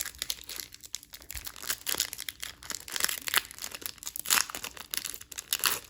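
Foil trading-card pack being torn open and crinkled by hand, an irregular run of crackling and tearing.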